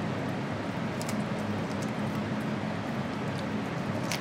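Small dog crunching a raw chicken foot, with a few sharp bone cracks about a second in and again near the end. A steady low hum runs underneath.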